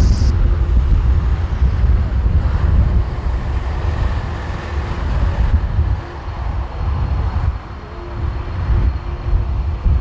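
Strong gusty wind buffeting the microphone in a loud, uneven rumble that eases briefly about six and eight seconds in, over the fainter running sound of a Boeing 737 airliner's jet engines on final approach.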